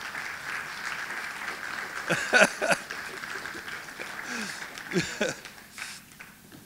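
Congregation applauding in welcome, with a couple of brief voices over it about two and five seconds in; the applause dies away near the end.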